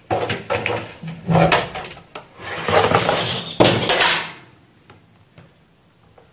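Clatter of things being handled on a workbench: a clear plastic test box with banana-jack sockets being set down and test leads moved about, a run of knocks and plastic rattles lasting about four seconds, then stopping.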